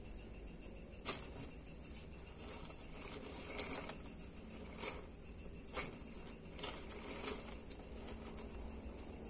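Baby water monitors scrabbling over bark chips and driftwood as they grab and tug at a mouse: scattered sharp clicks and knocks of claws and chips, with a scratchy rustle a few seconds in.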